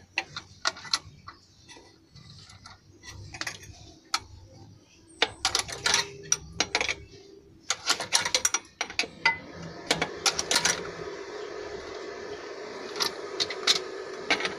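Irregular metallic clicks and clinks of a wrench working on the injector fuel-line fittings of a Nissan Diesel RF8 V8 engine. A steady machine hum comes in about ten seconds in.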